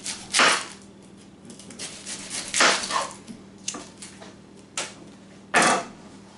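A chef's knife cutting through a sweet onion onto a plastic cutting board: a few short slicing strokes and knocks of the blade on the board, the loudest about half a second in, around three seconds in and near the end.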